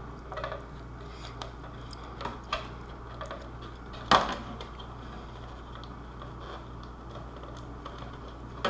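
Scattered small clicks and taps of hands handling a plastic armor piece while peeling Velcro dots off it, with one sharper tap about four seconds in, over a steady low hum.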